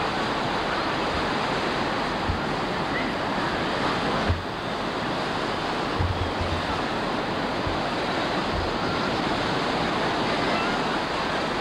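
Ocean surf breaking and washing through the shallows, a steady rush of noise, with a few brief low thumps scattered through it.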